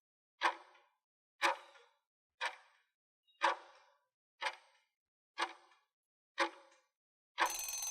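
Clock-ticking countdown sound effect, one sharp tick a second, seven ticks in all. About seven seconds in, a short noisy time-up sound with a few steady tones in it marks the end of the countdown.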